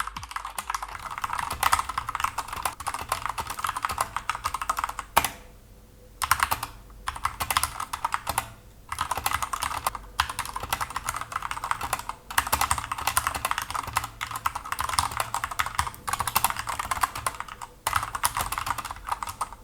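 Typing test on an Akko 3068 65% mechanical keyboard with Cherry MX Red linear switches and PBT keycaps: rapid runs of key clicks and clacks, broken by several short pauses. A white corrugated plastic sheet under the keyboard dulls the sound a little.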